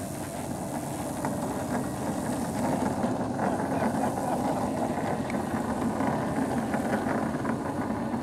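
Large RC plane's Turnigy 230Kv brushless electric motor spinning a 20x12 wood propeller as the plane sits and taxis, a steady propeller rush that grows louder about a second in.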